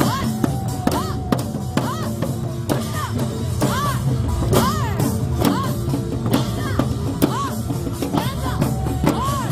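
Pungmul sogo hand drums struck with sticks in a quick, lively rhythm by a group of drummers. Over the beats, a high tone swoops up and down about once a second.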